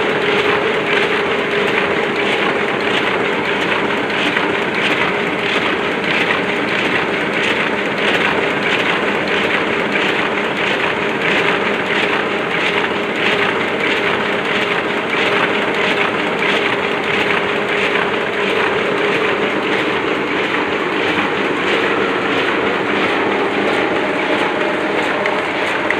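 Oliver offset printing press running at normal operating speed: a steady, fast, even clatter over a constant mechanical hum.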